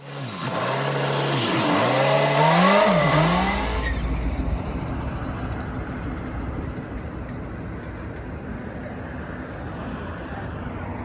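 A vehicle engine revving up and down several times, then running steadily with a low rumble for the rest of the time.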